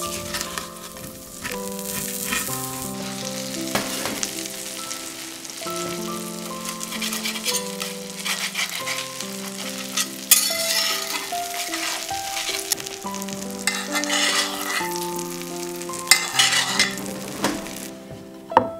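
Food sizzling as it fries in oil: first beetroot pieces stirred in a pan, then salmon fillets and garlic cloves searing in a cast-iron skillet and turned with a slotted spatula, with louder bursts of sizzle a few times as they are moved. Soft background music with held notes plays under it.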